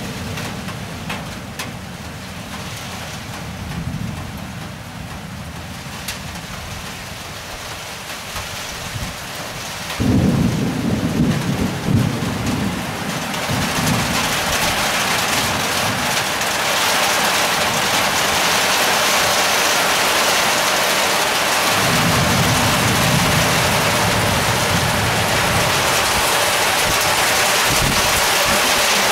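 Thunderstorm: low rolling thunder with a sudden loud thunderclap about ten seconds in. Heavy rain sets in with a steady hiss that gets louder through the second half, with more rumbling of thunder beneath it.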